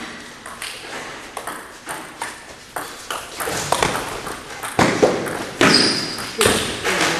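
Table tennis rally: the ball clicking sharply off paddles and the Stiga table several times a second, with each hit echoing in a gym hall. The hits get louder in the second half.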